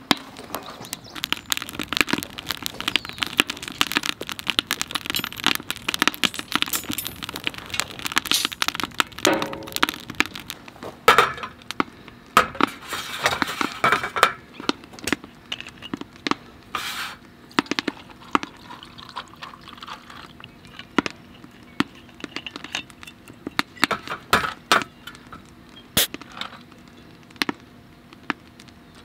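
Many sharp cracks and clicks: a wood fire crackling in a stainless steel fire pit, then glass bottles and a steel mug clinking as they are handled on an aluminium camp table.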